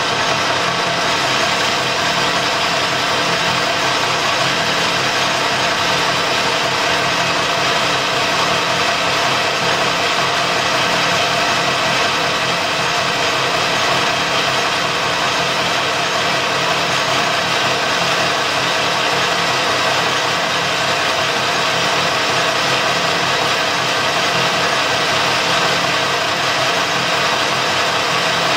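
Colchester metal lathe running steadily under power while a turning tool cuts a 65 mm steel bar: a constant machine hum and whine with several steady tones.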